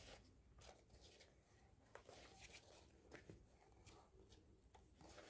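Faint, scattered rustling and light scraping from hand-stitching a leather patch onto a mesh sneaker: thread drawn through the leather and the shoe handled, with a few soft clicks.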